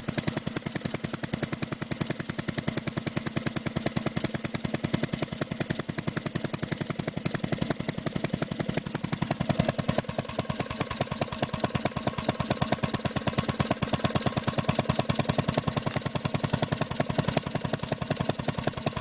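Small engine running at a steady speed, with rapid, evenly spaced pulses.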